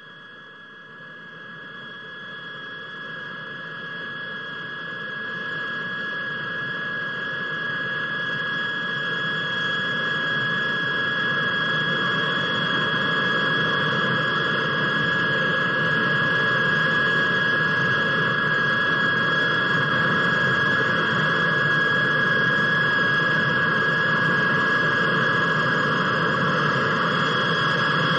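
Morane-Saulnier MS.760 Paris light jet taxiing towards the listener. Its twin turbojets give a steady high whine over a rushing noise, which grows louder over the first fifteen seconds or so and then holds steady.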